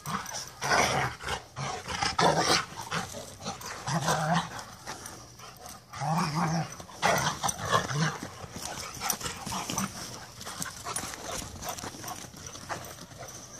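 Two Rottweilers play-fighting, growling in repeated short bursts, then quieter as they break off into a chase near the end.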